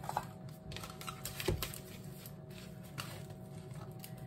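Paper-and-cardboard wrapper of a canned cinnamon roll tube being peeled open and handled, a run of light rustles, crinkles and small clicks, with one soft knock about a second and a half in.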